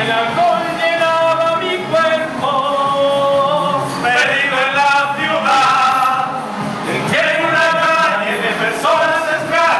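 A small group of men singing together without accompaniment, in long held notes with several voices at once.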